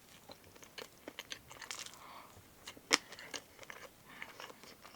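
Close-miked chewing of a mouthful of cupcake: soft wet mouth sounds with small crunches and clicks, and one sharper click about three seconds in.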